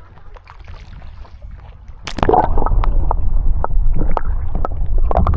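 Water splashing and sloshing close to the microphone. It is fairly quiet at first, then turns suddenly loud with a big splash about two seconds in, followed by a low rumble and scattered sharp splashes.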